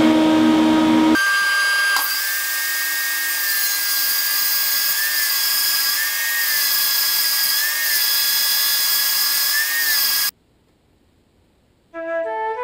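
Portable table saw ripping a Miratec trim board lengthwise: the motor is running at the start, and from about a second in the blade is in the board, a steady whine over hiss. The sound cuts off suddenly about ten seconds in, and flute music begins near the end.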